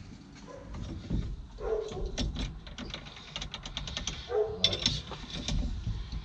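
Hand ratchet clicking in quick, even strokes as the nut on an excavator joystick's pilot valve is tightened down by hand, with two short louder pitched sounds about a second and a half and four seconds in.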